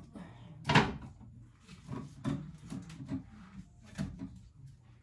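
Knocks and clunks of groceries being put away into a fridge, its shelves and drawers handled. The loudest knock comes under a second in, with smaller ones after it.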